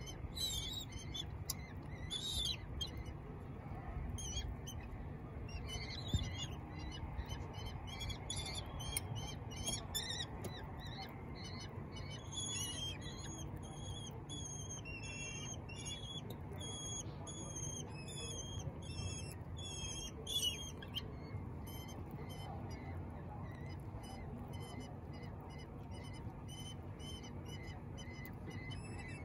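Common kestrel chicks calling while being hand-fed: a run of short, high, wavering begging calls, thickest in the middle of the stretch, over a steady low rumble.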